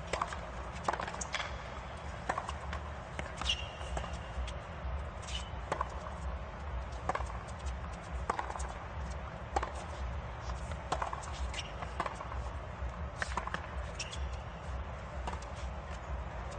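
Tennis rally on a hard court: sharp pops of rackets striking the ball and the ball bouncing, about one a second, over a low steady stadium rumble.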